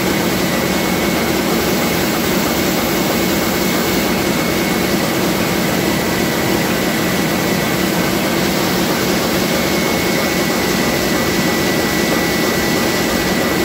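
Komori Lithrone L432 four-colour sheetfed offset press running, a loud, even machine noise with a thin steady high whine and no change in pace.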